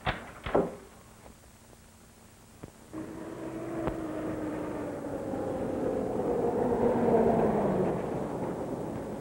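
Engine of an old pickup truck approaching along a road, growing louder from about three seconds in, then going by and easing off with its pitch sinking slightly. There are two sharp knocks at the very start.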